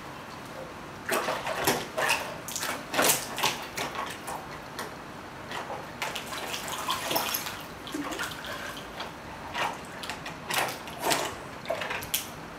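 Shetland sheepdog swimming in a large round tub of water, its paddling paws making irregular splashes that start about a second in.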